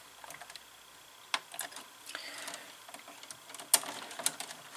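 Scattered light clicks and a brief rustle from hands handling wires at terminal blocks inside an electrical control cabinet, with the sharpest clicks coming in a quick cluster near the end.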